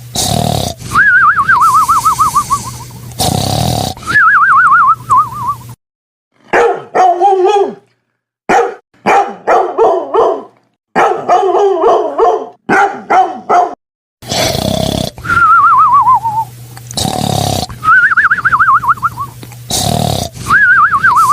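A dog barking and whining. The wavering whines fall in pitch and repeat every few seconds at the start and again near the end, and choppy barks come in quick bursts through the middle.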